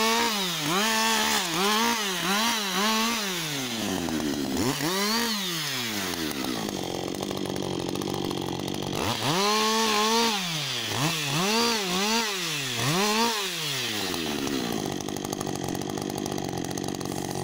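Husqvarna 562 XP two-stroke chainsaw limbing branches off a felled trunk: the engine revs up and drops back in quick bursts about once a second. It falls to idle twice in between, and idles steadily for the last few seconds.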